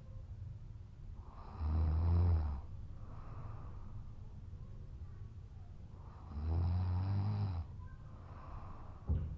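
A man snoring heavily in deep sleep after a night of heavy drinking. There are two loud, deep snores about five seconds apart, with quieter breaths between, and a short sharp click near the end.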